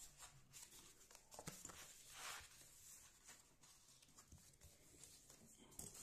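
Near silence, with faint handling of paper pattern pieces: a light click, then a brief soft rustle about two seconds in.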